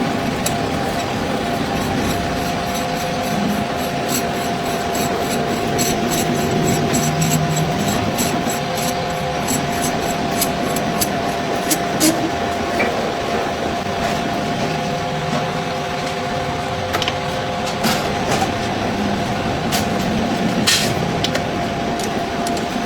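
Workshop machinery running with a steady hum, with many sharp metal clicks and taps over it, densest during the first half.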